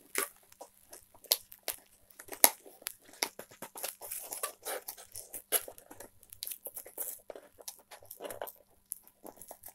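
Hands picking and tearing at a sealed bath bomb box: a run of irregular small crackles and clicks, with one sharper snap about two and a half seconds in.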